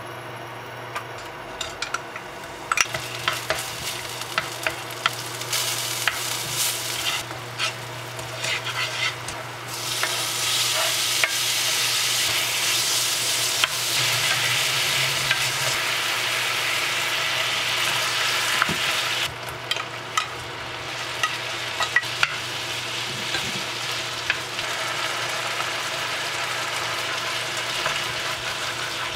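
Diced beef and vegetables sizzling in oil in a nonstick frying pan, stirred with a wooden spatula that taps and scrapes against the pan. The sizzle grows louder partway through, then drops suddenly about two-thirds of the way in.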